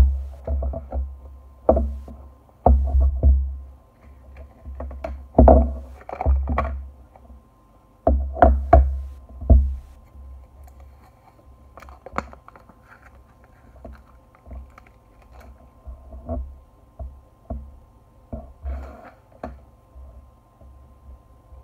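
Hands handling a cardboard smartphone box and the phone inside it: irregular knocks, taps and rustles as the lid comes off and the phone is lifted out and turned over, with dull low thumps. Busiest in the first ten seconds, then sparser.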